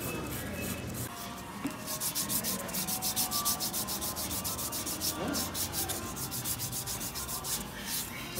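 Handheld nail file rubbing back and forth across fingernails in quick, regular strokes, shaping the nails. The strokes are strongest from about two seconds in until about five seconds in.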